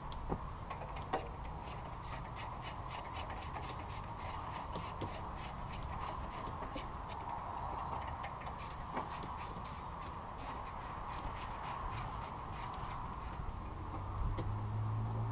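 Ratchet wrench clicking in an even rhythm, about three clicks a second, stopping near the end, over a steady hum.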